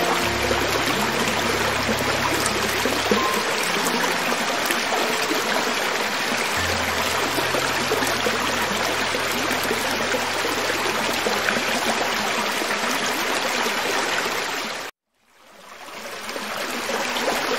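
Creek water running over rocks: a steady, dense rush. About 15 seconds in it cuts out suddenly for a moment, then fades back in.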